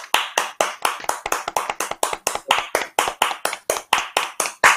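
Several people clapping over a video call: quick, sharp, separate claps coming through the call audio, about seven a second.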